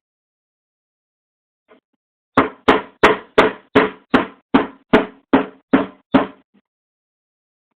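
A nail used as a punch being struck with a hammer, driving out the extractor pin of a CZ 82 pistol slide. About eleven sharp metallic taps come at roughly three a second, starting a couple of seconds in and stopping after about six seconds.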